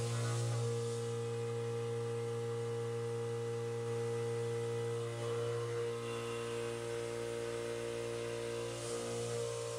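CNC machining centre milling 4140 pre-hard steel with a 3/4-inch backdraft end mill, its spindle at 3500 RPM semi-finishing the pocket walls: a steady hum of several constant tones from the cut. The tone shifts slightly about five seconds in and again near nine seconds as the tool works along the wall.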